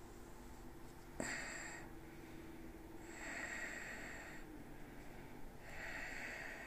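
A person breathing through the nose close to the microphone, three breaths about two seconds apart, with a small click about a second in.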